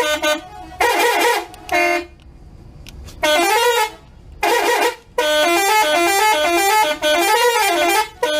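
Indonesian bus 'telolet' horns, multi-tone musical air horns, playing warbling up-and-down tunes in a string of loud blasts, most short and one running about two seconds near the middle.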